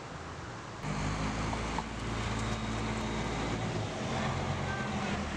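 Street traffic: car engines running with a steady low hum, which starts suddenly about a second in, over fainter outdoor background noise.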